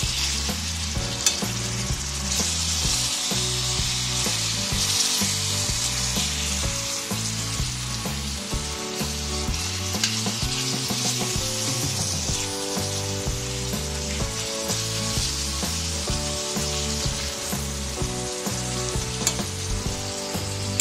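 Minced meat and chopped onions sizzling in hot oil in a metal frying pan while a metal spoon mashes and stirs the meat, with a few sharp clicks of the spoon against the pan.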